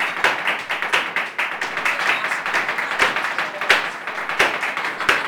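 Flamenco palmas: two men clapping hands in a fast, dense rhythm, with stronger accented strikes standing out every second or so.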